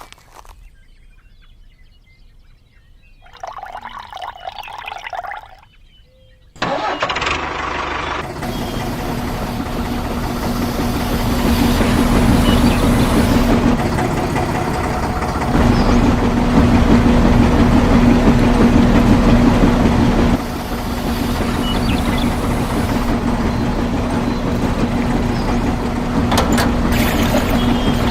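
An engine-like running sound starts abruptly about six seconds in and keeps going steadily with a low hum, a little louder from about twelve seconds on.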